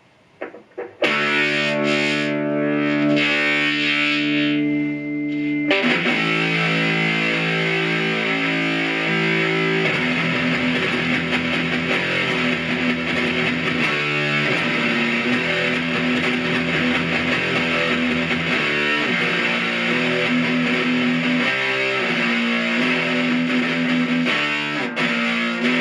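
Electric guitar played through the first slip-on circuit of the Stomp Box Fuzz pedal, a fuzz modelled on the Noise Therapy FX Revenant. About a second in, a chord rings out and is held for about five seconds. Then the playing turns to thick, distorted fuzz riffing with long sustaining notes.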